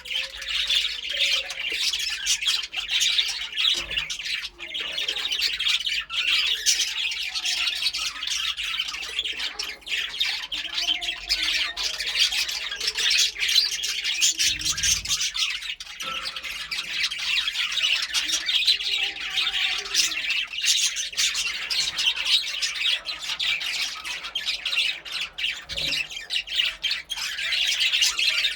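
Several budgerigars chattering and chirping continuously, a dense run of fast, high squawky calls with no pauses. A few soft low thumps are heard.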